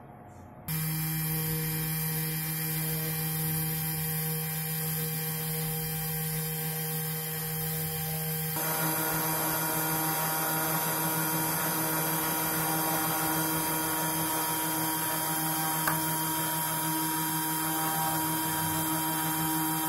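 Spindle motor of a homemade CNC router running with a steady hum and a high whine while its engraving bit mills a copper-clad circuit board. It gets slightly louder about nine seconds in.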